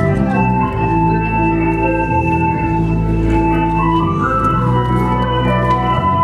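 Instrumental music accompanying a stage dance: long held notes and chords under a slow melody line, one note sliding upward about four seconds in.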